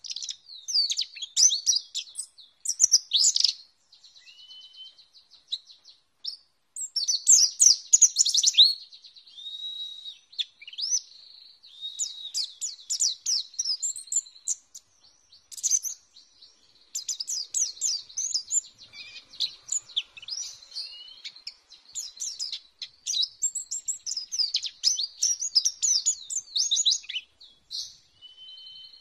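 White-eye (pleci) singing in bursts of rapid, high-pitched twittering chirps and trills with short pauses between phrases. A faint steady high tone runs underneath.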